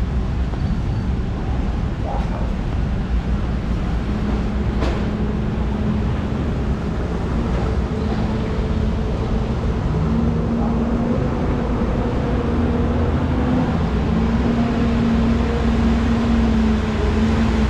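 A motor engine running close by, a steady low hum that grows a little louder in the second half, over a noisy street background.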